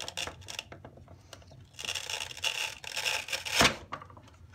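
A sealed lead-acid battery is wiggled and pulled out of a plastic battery case, rubbing and scraping while the Velcro pad under it rasps as it tears loose. A single sharp knock comes about three and a half seconds in.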